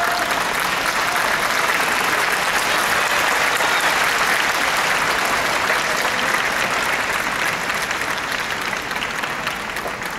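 Arena crowd applauding after a point, building to its loudest about midway and easing off toward the end.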